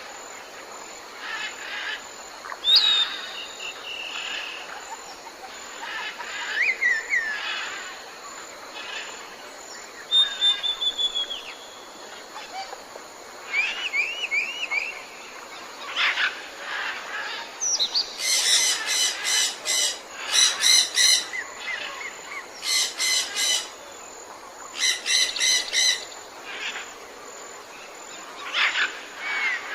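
A chorus of jungle birds: scattered whistles, short trills and chirps over a steady background hiss. In the second half come several bursts of rapid, chattering notes.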